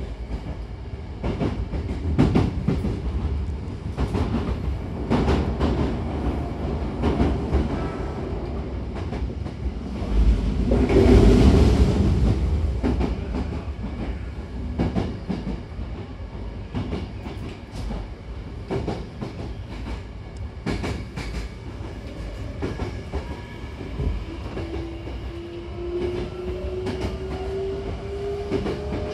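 Hankyu 9000-series electric train heard from inside the car while running: a steady rumble with the clack of wheels over rail joints and points, swelling louder about ten seconds in. A motor whine rises slowly in pitch during the last five seconds as the train gathers speed.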